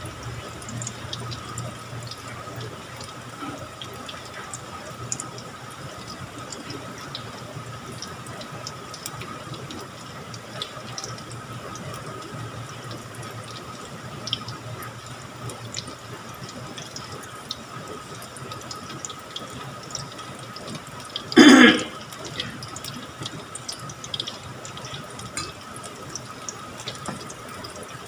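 Sweet potato fritters sizzling in hot cooking oil in a frying pan: a steady hiss with scattered small pops. A single sudden loud knock comes about three-quarters of the way through.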